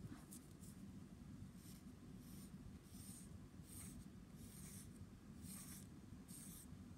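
Pencil scratching on a sheet of paper: a few light taps at first, then a series of separate strokes about one every 0.7 seconds.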